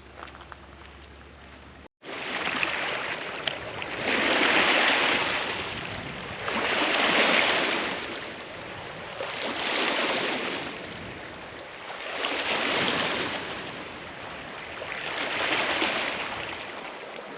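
A low steady hum, then an abrupt cut about two seconds in to waves washing onto a lakeshore, swelling and fading in a slow rhythm about every three seconds.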